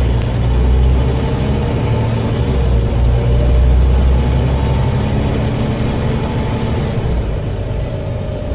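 Scania OmniCity single-deck bus's diesel engine running steadily with a low drone.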